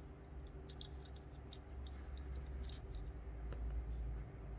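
Scattered light clicks and ticks of fingers handling a small diecast toy car, over a steady low hum.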